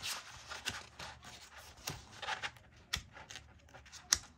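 Pages of a paper colouring book being leafed through: soft rustling, broken by a few sharp clicks, the loudest near the end.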